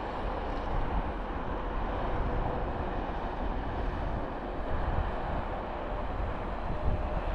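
Steady rumble of highway and truck traffic, an even noise with no distinct events.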